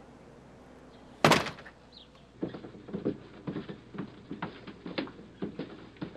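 A door banging shut about a second in, then a run of footsteps, about three a second.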